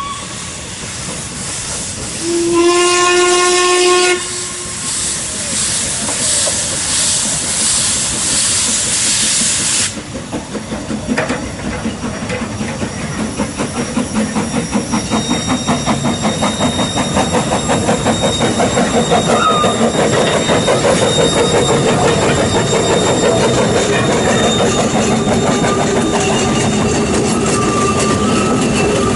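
Narrow-gauge steam locomotive giving one whistle blast of about a second and a half, over a hiss of steam that stops abruptly about ten seconds in. The locomotive then sets up a steady rhythmic chuffing of exhaust beats as it gets under way.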